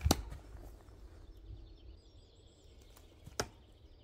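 A homemade steel throwing knife striking a wooden stump target with a sharp knock just after the start, and a second, fainter knock about three and a half seconds in. Faint bird chirps between them.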